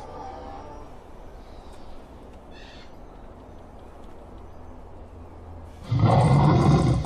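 Animatronic raptor dinosaur's recorded roar played through a loudspeaker. One roar trails off at the start, and a loud, deep roar starts suddenly about six seconds in. Between them there is a faint high chirp.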